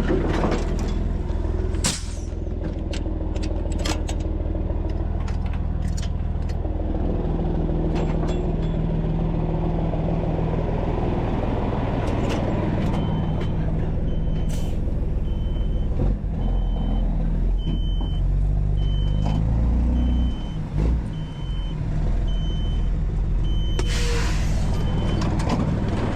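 Heavy diesel machinery running steadily, with a few short bursts of air hiss. About halfway in, a backup alarm starts beeping about once a second and keeps on until near the end.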